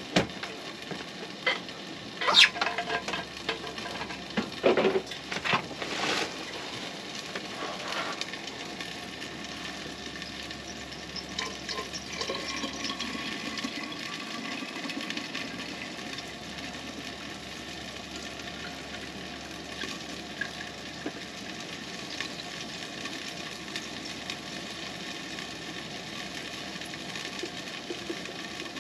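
Eggs frying in a pan on a Coleman two-burner propane stove: a steady sizzle with faint crackles. Several knocks and clinks of cookware being handled come in the first several seconds.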